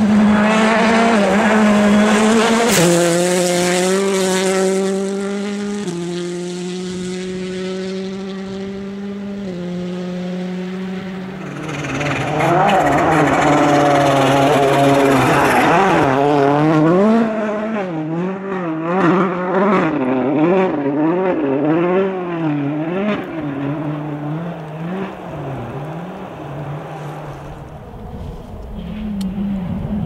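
Rally car engines running hard on a special stage. For the first dozen seconds the revs hold nearly steady, stepping between gears. After that they rise and fall about once a second until near the end.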